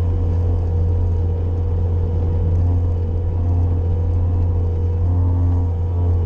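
Bobcat skid-steer loader's engine running steadily at a constant speed, a deep, even drone.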